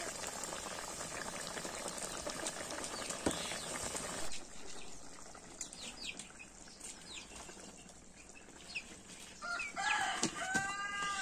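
Fish curry simmering in a kadai over a wood fire, a steady bubbling hiss that cuts off abruptly about four seconds in. After that it is quieter, with a few short bird chirps, and a chicken calls near the end.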